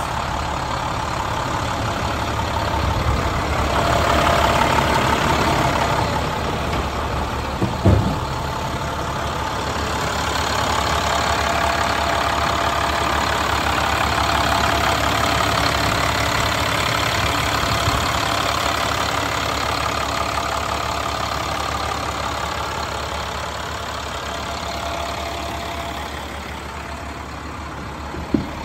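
A 2009 International straight truck's diesel engine idling steadily. There is a single knock about eight seconds in and a short click near the end as the cab door handle is worked.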